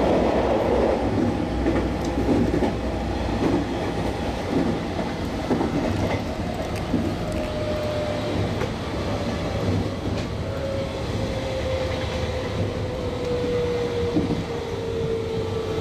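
JR West 221 series electric train running at speed, heard from on board: steady wheel and rail rumble with clicks over rail joints. From about halfway a whine slowly falls in pitch.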